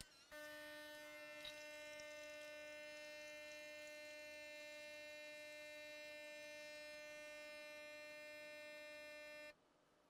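Gaggia Magenta espresso machine's pump running as it adds hot water on top of an espresso shot to make an Americano, sped up fivefold into a faint, steady buzz that cuts off suddenly near the end.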